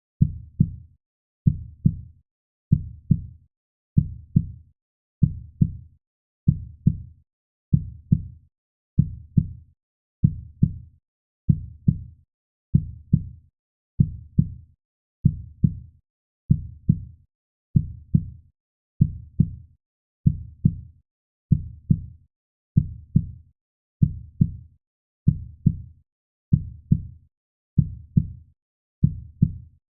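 A slow, steady heartbeat: pairs of short, low thumps (lub-dub), about one pair every 1.2 seconds, all alike, with nothing else heard between them.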